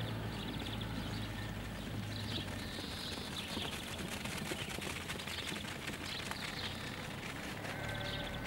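Sheep hooves tapping on a tarmac road as a few sheep trot past, a rapid run of clicks that is thickest a few seconds in. Small birds chirp in short high trills over a steady low hum.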